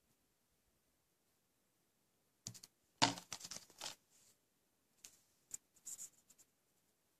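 A plastic Blu-ray case handled and laid flat on a plastic-covered table: a cluster of clacks and crinkles about three seconds in, then a few lighter plastic rustles and ticks.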